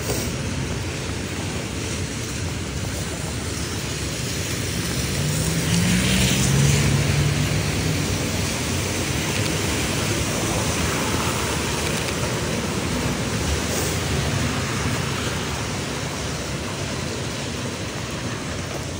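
Steady wash of a wet, rainy street. A vehicle passes about five to eight seconds in: its low engine tone rises as the sound swells, then fades back into the hiss.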